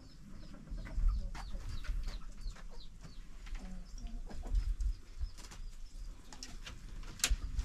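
Farmyard birds: many short, faint, high chirps repeating throughout, mixed with scattered sharp clicks and knocks.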